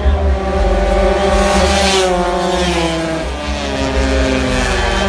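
80cc racing motorcycle engine revving hard down the track. Its pitch climbs, drops about three seconds in, then climbs again.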